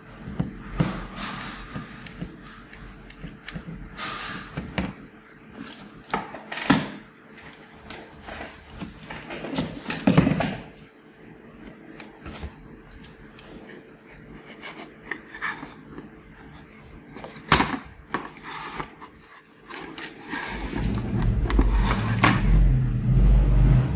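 Scattered clicks, taps and knocks of hand-soldered LED display boards and their wires being handled and moved on a table, over a faint steady hum. A low rumble comes in near the end.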